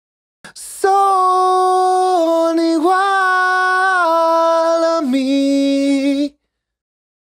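A man's voice singing unaccompanied through a Tierra Audio New Twenties condenser microphone, with mix processing. He holds a few long, high notes, slides down to a lower note about five seconds in, and stops about a second before the end.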